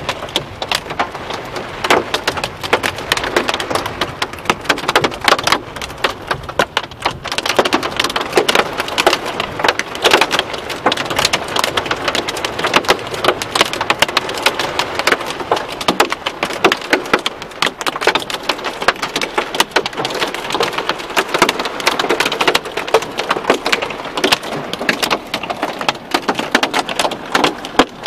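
Heavy rain mixed with hail falling hard on surfaces: a dense, continuous patter of sharp hits.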